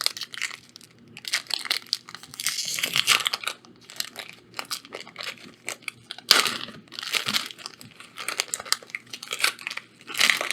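Foil wrapper of a Magic: The Gathering draft booster pack crinkling and tearing as it is ripped open, in irregular crackly bursts with louder rips about a third and two thirds of the way through.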